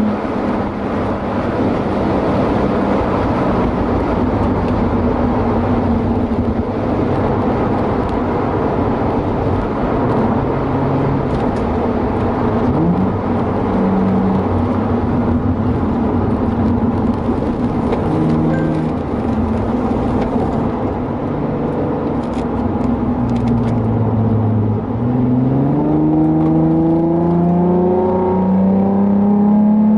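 Nissan 350Z's V6, fitted with an aftermarket Y-pipe and catback exhaust, heard from inside the cabin during a track lap. It holds a fairly steady note with road noise while the car slows from high speed through a long bend, then revs up steadily near the end as the car accelerates out of the corner.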